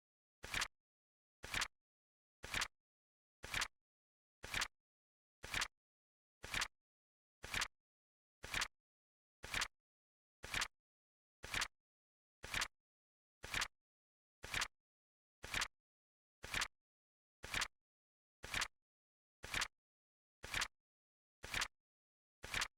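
Flip-clock card flip sound effect: a short, sharp click every second, evenly spaced, with silence between the clicks.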